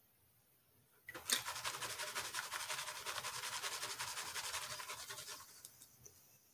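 Paydirt being shaken in a plastic gold pan held down in a tub of water: a fast, rhythmic swishing of water and gravel. It starts about a second in and fades out near the end.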